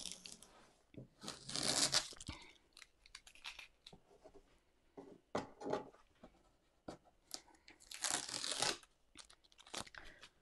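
Masking tape being peeled off watercolour paper in two long rips, one about a second in and one near the end, with paper rustling and light taps in between.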